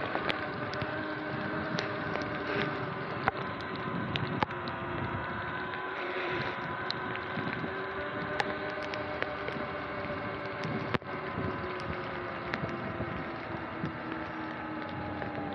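Sur-Ron electric dirt bike under way: the motor and chain whine steadily over the hiss of tyres on wet pavement and wind on the microphone, with scattered short ticks. The whine sinks slightly in pitch near the end as the bike slows.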